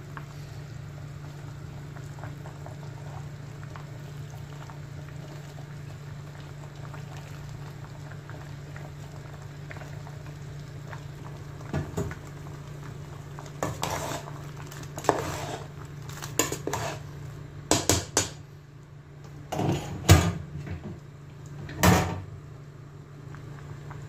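Aluminium pot of mung bean soup at a rolling boil, bubbling steadily over a low hum. In the second half come a series of sharp metal clanks and clatters of pot and utensils, the loudest about twenty seconds in.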